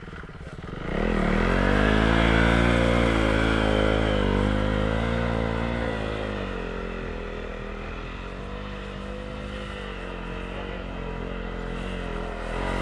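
KTM 390 Duke's single-cylinder engine revving hard, climbing sharply about a second in and held high with a wavering pitch while the rear wheel spins in loose dirt, then easing to a lower, steadier run before rising again near the end.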